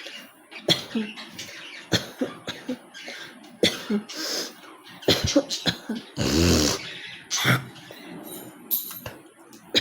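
A person coughing over and over, a string of short, sharp coughs. Midway there are two longer rasping hawks of clearing up phlegm from the throat.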